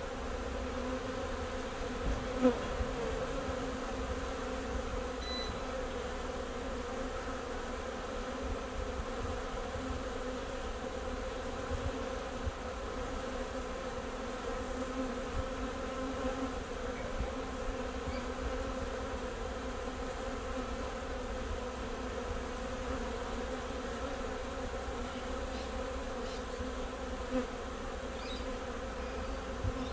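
A freshly collected swarm of honey bees buzzing at the hive entrance as they walk in: a steady, dense hum with a low rumble underneath and a few brief louder spikes.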